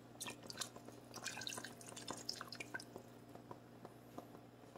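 Faint scattered drips and small splashes of a milky cornstarch slurry falling into a pot of broth, thickest in the first few seconds and thinning out after, over a low steady hum.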